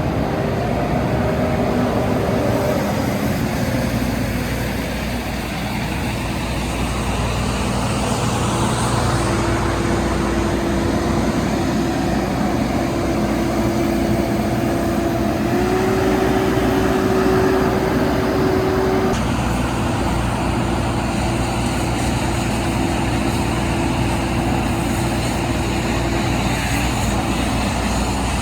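Large asphalt paver's diesel engine running steadily, with a thin whine that steps up in pitch about halfway through and stops a few seconds later.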